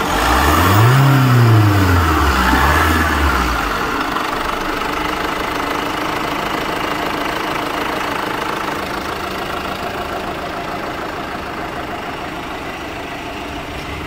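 Tata Safari's diesel engine blipped once: it revs up over about a second, falls back, and settles into a steady idle. It has a newly fitted alternator overrunning clutch pulley, and the grinding, bearing-like noise it made when the old pulley had seized is gone.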